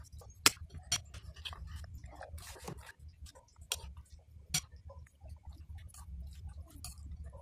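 Metal spoon clinking and scraping against a ceramic plate of chicken rice porridge, with soft wet chewing between. The sharpest clinks come about half a second in, near one second, and twice more around four seconds, over a low steady hum.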